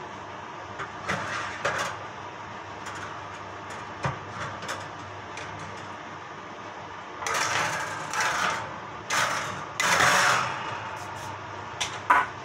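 Metal baking tin scraping and clattering as it is slid out across an oven's wire rack, with two long, loud scrapes past the middle and a couple of sharp clinks near the end. A convection oven's fan hums steadily underneath.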